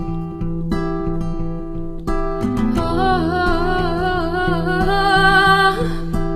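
Acoustic guitar plucking a steady pattern over a sustained bass. About three seconds in, a held melody line with vibrato comes in on top, and it fades out near the end.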